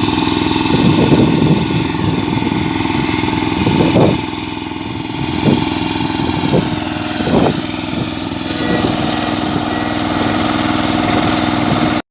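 An engine running steadily, with a few short knocks or clanks over it in the middle.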